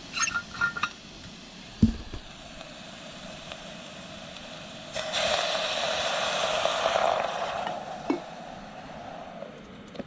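Metal clinks from a Jetboil cooking pot and utensils with turkey steaming in it, then a single knock. From about halfway through comes roughly three seconds of louder hissing over a steady low rush.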